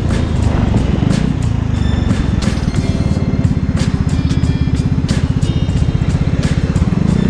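Vespa scooter's single-cylinder engine running steadily as the scooter rides through a turn, its exhaust pulsing fast and even, with scattered knocks of wind on the camera microphone.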